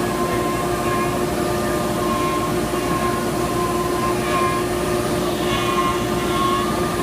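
Omni 1325 ATC CNC router running steadily, its spindle holding an even whine over machining noise.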